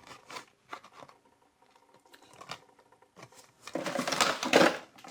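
Packaging crinkling and rustling as it is handled. A few light clicks come in the first second, then a louder burst of crinkling near the end.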